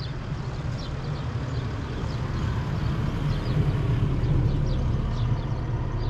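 Low rumble of a passing motor vehicle, swelling to its loudest about four seconds in.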